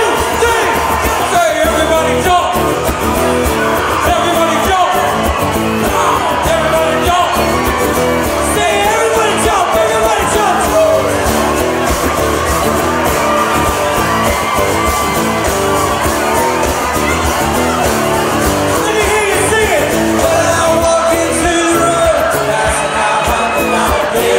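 Live country-rock band playing, with a lead singer singing into a microphone over strummed acoustic guitars, electric guitar and drums.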